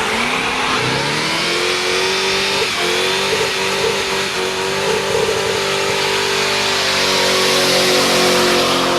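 Muscle car engine revving up in the first second and then held at high revs, nearly steady, during a burnout, with a dense hiss of spinning tyres over it.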